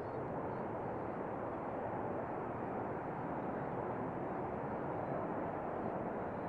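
Grumman EA-6B Prowler's twin J52 turbojet engines running at takeoff power as the jet starts its takeoff roll, a steady, unbroken jet noise.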